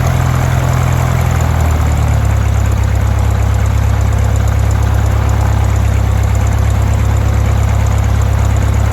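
Lycoming O-320 four-cylinder aircraft engine of a Kitfox STi running steadily at low speed on its first start, its note shifting slightly about two seconds in.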